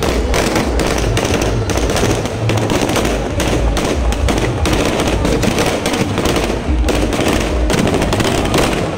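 Firecrackers going off in a rapid, unbroken series of loud cracks.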